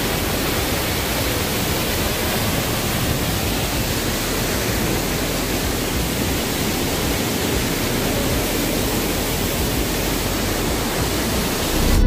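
Waterfall pouring over rocks: a steady, even rush of falling and splashing water.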